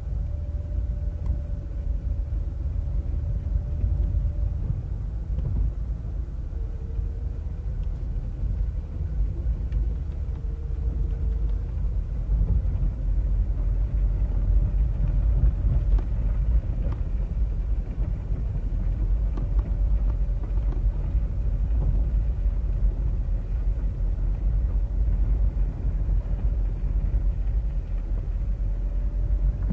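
A car driving on a dirt road, heard from inside the cabin: a steady low rumble of tyres and engine, with a faint thin hum above it that dips slightly lower for a few seconds.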